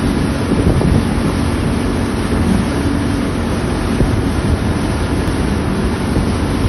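Yamaha outboard motor running steadily at speed while towing, with water rushing in the boat's wake and wind buffeting the microphone.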